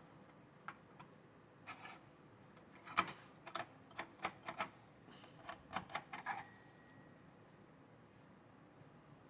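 Small metal chainsaw parts and hand tools clicking and clinking on a workbench: a run of irregular light taps and clicks, ending with one brief metallic ring.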